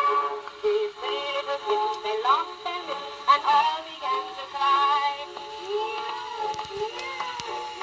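HMV model 109 wind-up gramophone with a No. 4 soundbox playing a 1918 miniature 78 rpm shellac children's record: a voice singing a nursery rhyme over accompaniment. The sound is thin, with no low notes.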